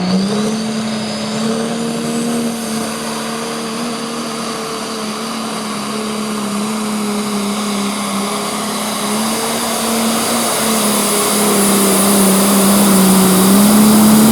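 Pro stock pulling tractor's turbocharged diesel engine (an International Harvester) at full throttle, dragging the weight sled down the track. A steady engine note wavers a little under load, with a high turbo whistle above it, and grows louder toward the end of the run.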